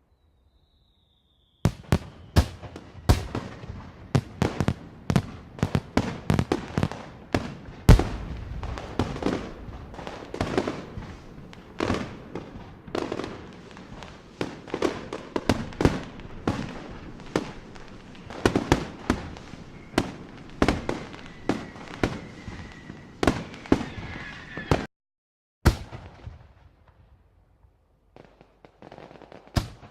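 Many fireworks and firecrackers going off in rapid, overlapping bangs. They start about a second and a half in, break off abruptly near the end, then return fainter and sparser.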